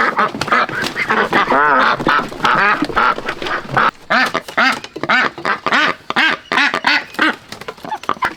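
A large flock of caged domestic ducks quacking loudly and without pause, many calls overlapping into a continuous din.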